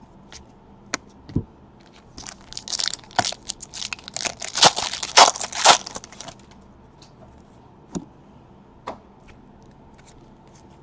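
Foil trading-card pack wrapper being torn open and crinkled, a dense crackling that starts about two seconds in and lasts about four seconds. A few single light clicks of cards being handled come before and after.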